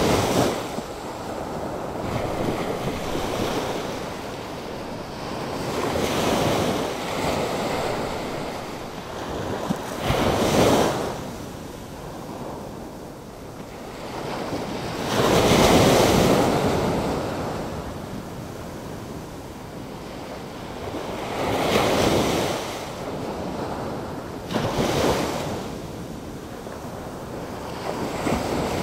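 Atlantic Ocean storm surf: waves breaking and washing up the shore in a continuous hiss, with bigger breakers swelling in every five or six seconds and ebbing away between them.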